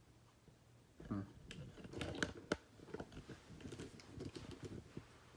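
Handling noise: a quick run of irregular light clicks and rustles, starting about a second in.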